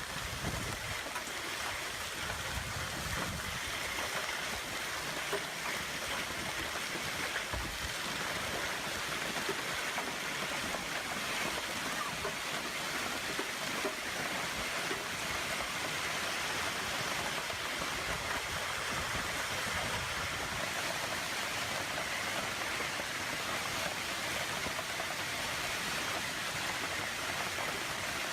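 Steady, even hiss of a heavy storm downpour.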